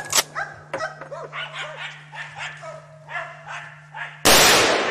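Hunting dogs barking and yelping in quick succession, then a rifle shot with a long echoing tail near the end.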